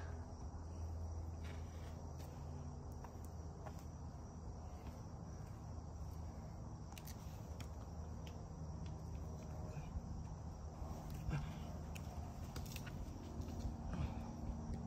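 A steady high-pitched insect trill carries on unbroken, over a low rumble, with a few faint ticks and scuffs now and then.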